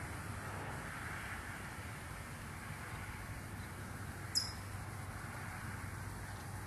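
Steady outdoor background noise with a low hum underneath, and one short high chirp about four seconds in.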